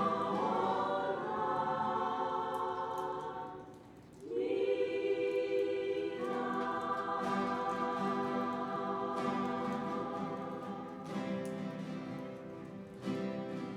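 Church choir singing a hymn in sustained chords. It breaks off briefly about four seconds in, then comes back in with long held notes.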